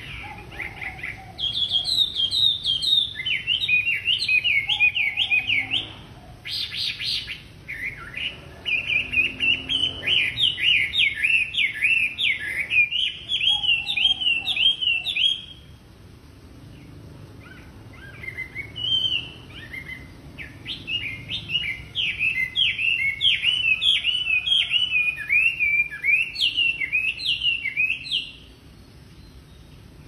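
A caged male Chinese hwamei (wambi) singing a loud, varied song of rapid, slurred whistled notes that rise and fall, repeated several times a second. It sings in three long bouts with short pauses between them.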